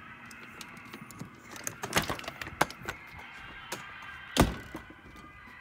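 A scatter of sharp clicks and knocks over a faint steady background, with one louder thump about four and a half seconds in.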